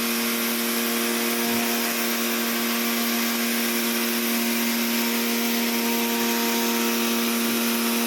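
Kawasaki pressure washer running steadily, a constant motor-pump hum under the hiss of its high-pressure water spray.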